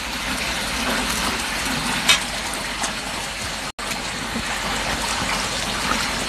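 Steady rushing noise like running water, with a single sharp clink about two seconds in. The sound cuts out for an instant a little past halfway.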